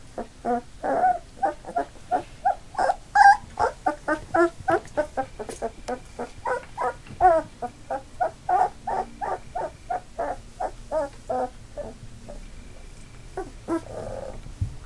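Labrador puppies, almost three weeks old, whining in a rapid string of short cries, about two or three a second, thinning out to a few scattered ones near the end.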